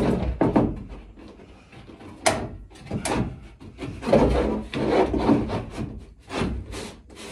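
Wooden wiring trough being slid into place under timber framing: wood scraping and rubbing against wood, with several sharp knocks as it is pushed and tapped home.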